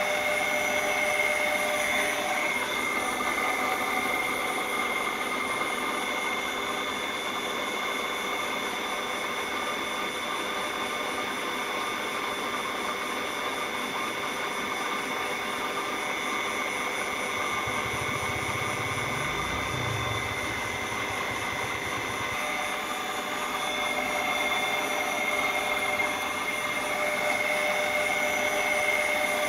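Small DC motor water pump running steadily with a high whine, pushing water through a plastic tube into a fish tank, where the stream trickles in.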